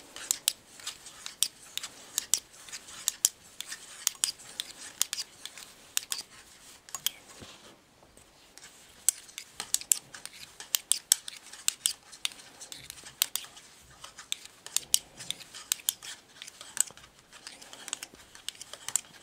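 Knitting needles clicking against each other as stitches are knitted, an irregular run of sharp clicks with a short pause about eight seconds in.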